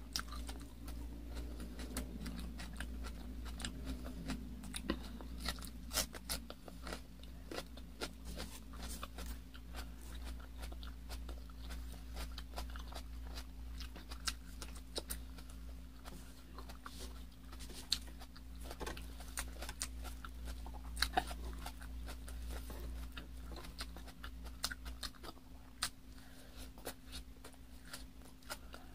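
Close-miked eating: crisp bites and chewing of raw red bell pepper and kiwi slices, with many small wet mouth clicks, over a steady low hum.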